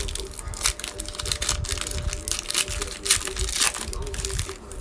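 Trading-card pack wrapper crinkling and tearing as it is ripped open.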